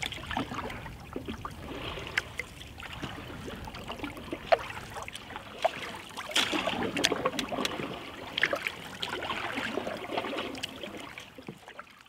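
Canoe paddle strokes in calm lake water: the blade dipping and pulling, water trickling and dripping off it, and small splashes and lapping along the hull. The splashing is a little louder from about six to ten seconds in.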